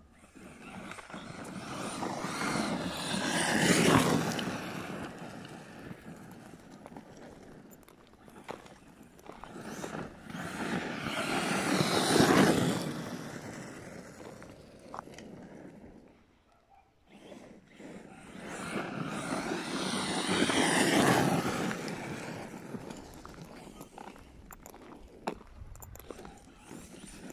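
ARRMA Kraton 6S brushless electric RC monster truck driving on a dirt track. Its sound swells up and fades away three times as it runs past and away.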